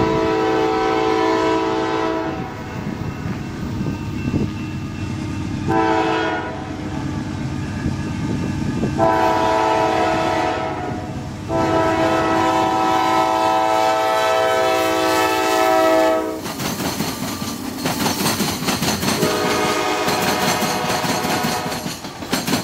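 Norfolk Southern freight diesel locomotives sounding a multi-tone air horn in separate blasts while approaching a grade crossing: a long blast at the start, a short one about six seconds in, a long drawn-out one from about nine to sixteen seconds, and another from about nineteen seconds, over the steady rumble of the engines and train. Near the end the lead locomotives pass close by.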